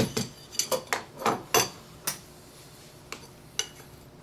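Metal parts of a saw jig clinking and clacking as they are handled and fitted together: a string of sharp, irregular clicks, thickest in the first two seconds, then two more spaced out near the end.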